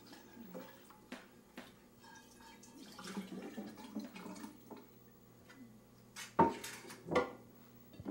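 Dishes and cutlery clinking in a sink as they are washed by hand, with a little water splashing and dripping. Two louder clatters come about a second apart near the end.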